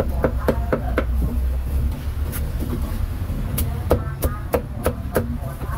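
Cleaver chopping meat on a wooden chopping block: a string of sharp, irregular chops, a few at first and then a quicker run after a short pause, over a steady low street rumble.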